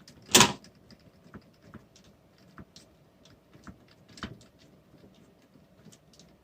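Irregular small clicks and taps of a hand screwdriver and plastic RC truck parts as a shock-mount screw is tightened down, with a sharper knock about half a second in and another around four seconds.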